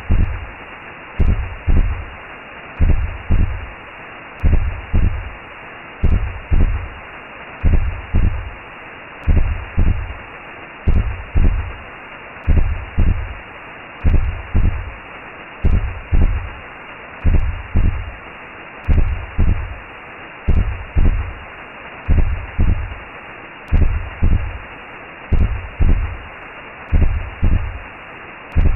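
Recreated womb sound: a slow heartbeat of paired low thumps, one pair about every second and a half, over a steady whooshing hiss.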